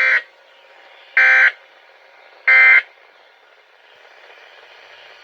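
Three short bursts of SAME digital data tones from an Environment Canada weather radio broadcast, each about a third of a second long and a little over a second apart, with faint radio hiss between them. The bursts are the end-of-message signal that closes the alert bulletin.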